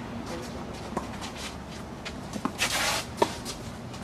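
Tennis balls struck by rackets in a doubles rally: sharp pops about a second in, again near two and a half seconds, and a louder one just past three seconds, with a short scuffing rush just before the last.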